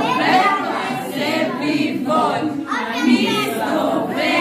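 A group of voices singing together without accompaniment.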